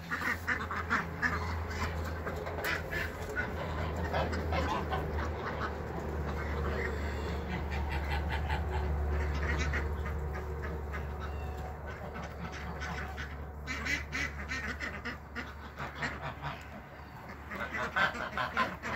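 A flock of ducks quacking in short, overlapping calls, busiest in the first few seconds and again near the end, over a low steady rumble.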